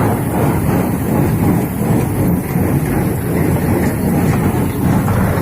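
Tractor engine running steadily while it drives a paddy straw baler, a continuous mechanical din.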